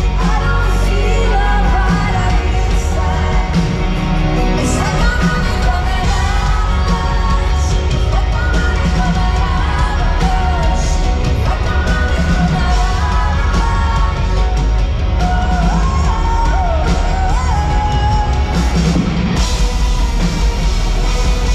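Live rock band playing loud from the audience's position: drums, bass and electric guitars with a woman singing lead, the low end heavy and boomy.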